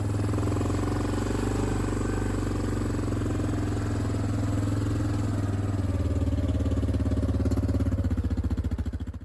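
Small gasoline engine running steadily; about six seconds in its note shifts and a regular pulsing comes in, and it cuts off abruptly at the end.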